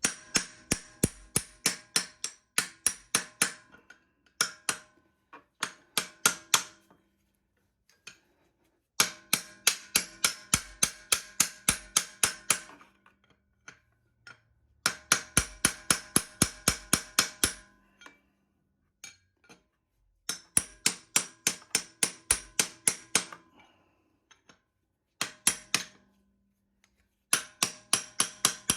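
Hammer blows driving a punch against an old freeze plug in a Dodge Neon engine block to knock it out. The strikes come about four a second in runs of several seconds with short pauses, each blow with a metallic ring.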